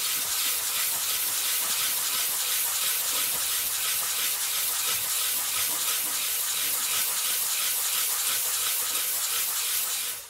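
A cut stone is rubbed by hand across a wet, worn diamond lapping disc, grinding it flat in a slurry of water and grit. It makes a steady, gritty, wet hiss with an even pulse from the quick back-and-forth strokes.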